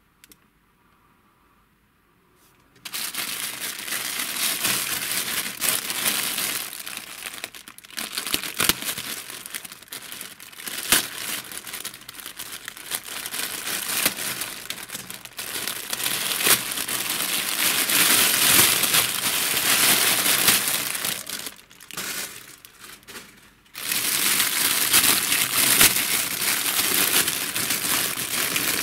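Thin black plastic mailer bag crinkling and rustling as it is handled and slit open, then a clear plastic bag crinkling. The crinkling starts about three seconds in and drops away briefly near the end before resuming.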